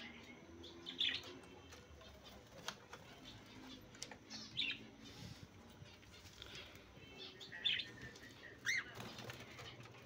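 Small pet parrots in a wooden breeding cage giving about four short, high chirps, with some wing flapping. A metal cage latch clicks near the start.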